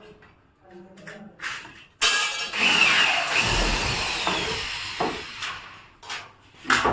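A power tool starts suddenly about two seconds in and runs for about four seconds, a dense noisy whirr with a faint whine that trails off, while metal ceiling framing is being fixed.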